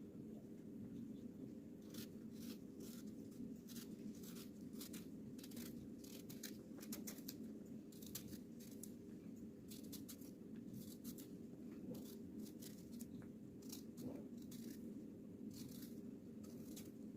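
Kitchen food preparation: light scratchy ticks and scrapes at an irregular pace, several a second, over a steady low hum.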